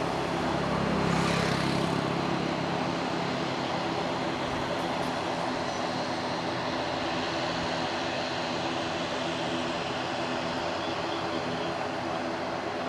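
An airliner's engines running steadily as it taxis, a continuous rush that swells slightly about a second in.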